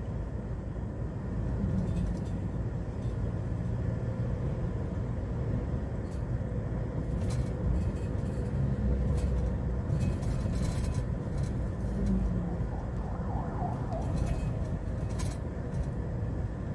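Steady low engine and road rumble inside the cab of a Hyundai Porter II automatic truck on the move, with a few faint short clicks.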